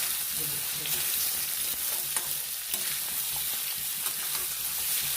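Apple pieces sizzling in hot oil with cumin and fennel seeds as a spoon stirs them in the pan: a steady hiss with scattered light ticks and scrapes of the spoon.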